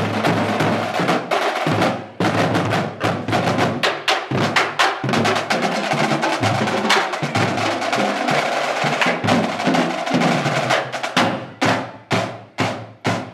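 High school marching drumline playing a fast cadence of snare and bass drums. Toward the end the dense rolls break into separate, spaced-out hits.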